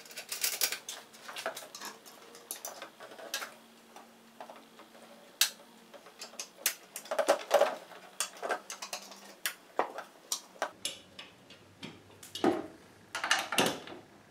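Irregular metal clinks and rattles of bolts and perforated steel hanger brackets being handled as a garage door opener's motor unit is fitted up to them. The clinks come thicker and louder in two spells, past the middle and near the end.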